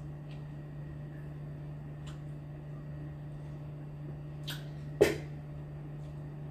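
Steady low electrical hum with a few faint ticks, then a sharp knock about five seconds in as a cup is handled and set on the table.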